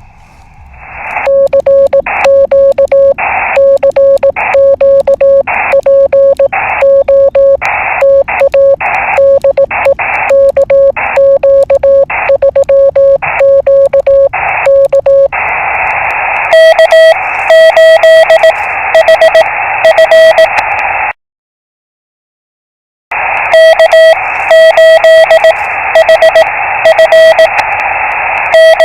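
Morse code (CW) tones keyed in dots and dashes through a ham radio receiver, over steady band hiss. A lower-pitched signal gives way about halfway through to a slightly higher-pitched one. The audio cuts to silence for about two seconds about three-quarters of the way in.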